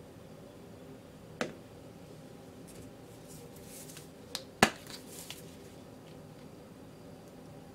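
Handling sounds on a tabletop with a glass plate and a squeeze bottle. There is a sharp tap about a second and a half in and a soft rustle, then two sharp clicks close together a little past halfway, the second the loudest.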